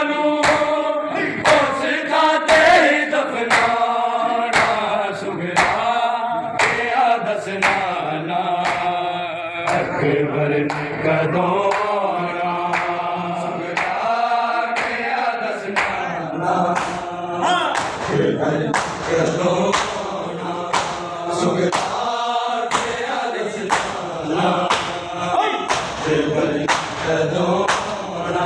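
Crowd of men chanting a nauha (mourning lament) together, over a steady beat of hands slapping bare chests in matam, just under two slaps a second.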